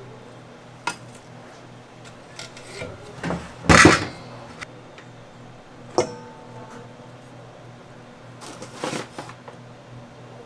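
A metal scoop clattering and clinking against a stainless steel mixing bowl as flour is scooped and poured in. The loudest scrape comes about four seconds in, and a sharp clink that rings briefly comes about six seconds in.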